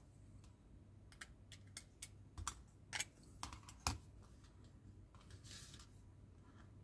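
Faint, scattered light clicks and taps of small plastic model parts, tiny screws and a small screwdriver being handled on a tabletop, the sharpest about three and four seconds in.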